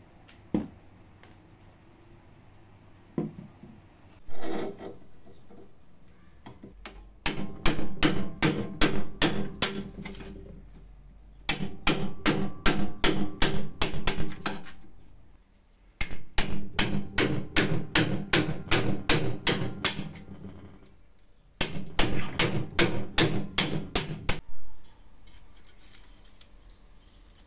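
Hammer blows on a metal part in four runs of quick, even strikes, about four a second, each run lasting a few seconds, after a few single knocks.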